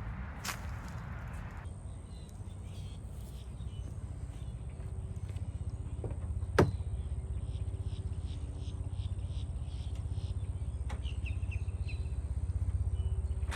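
Semi-truck diesel engine running as a steady low rumble, heard from inside the cab. A sharp click comes about six and a half seconds in.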